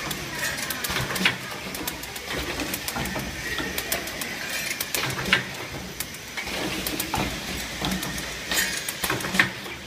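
Plastic cup counting and wrapping machine running: a steady hum with irregular clicking and clattering and a few sharper clacks.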